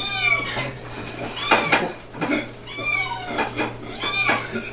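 A litter of six-week-old kittens meowing over one another in many short, high-pitched cries, hungry at feeding time, with plates and dishes clinking now and then.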